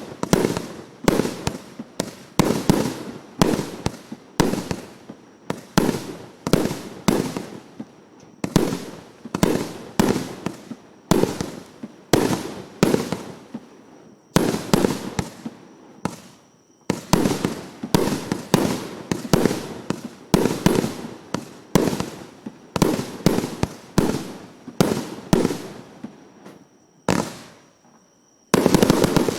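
A 300-shot, 1.2-inch firework battery (Ural Salyut Kremlevsky cake) firing a rapid run of shots, about two a second, each one dying away, with a few brief pauses and a denser, longer burst near the end.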